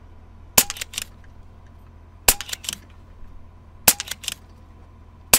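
Air rifle firing four quick shots about a second and a half apart, each a sharp crack followed within half a second by two or three fainter clicks, in rapid-fire speed shooting at close-range targets.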